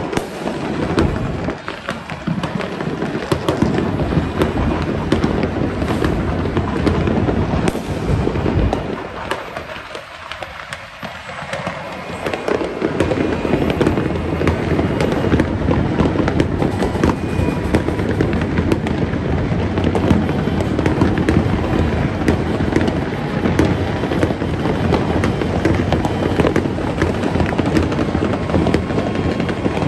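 Dense New Year fireworks and firecrackers, with many bangs and crackles overlapping continuously. They ease off briefly about ten seconds in, then build up again.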